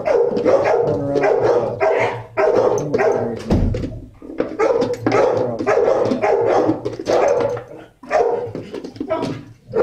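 Dogs in a shelter kennel barking over one another almost without pause, with brief lulls about four seconds in and near eight seconds.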